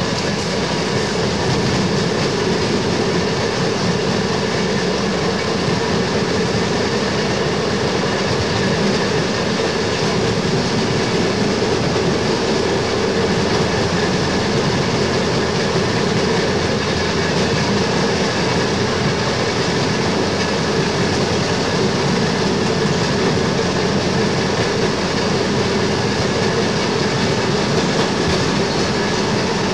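Train rolling along the track, heard from on board: a steady noise of wheels running on rail.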